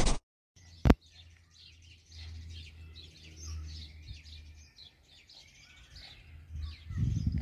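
Small birds chirping and singing, many short calls over and over, above a low outdoor rumble that grows stronger near the end. A loud burst of noise cuts off right at the start, and there is a sharp click about a second in.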